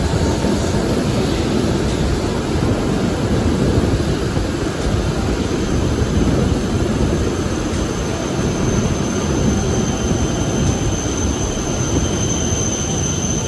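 Joetsu Shinkansen E7-series train pulling into the platform: a steady rumble of wheels and running gear. About halfway through, a high squeal of the braking train sets in and grows louder toward the end as it slows to a stop.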